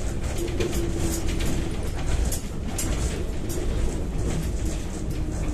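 Cabin noise of a Kyiv-12.03 trolleybus under way: a low rumble from the road with repeated rattles from the body, and a steady humming tone that runs for a little over a second near the start.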